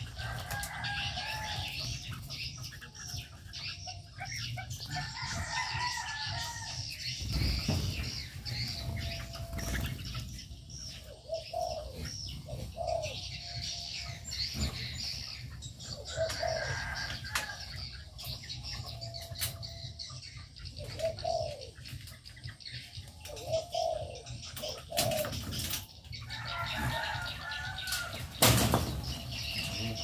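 Spotted doves and red-whiskered bulbuls in an aviary: repeated short, low coos and higher chirps, with a few loud flurries of wing flaps as birds take off. The loudest flurry comes near the end.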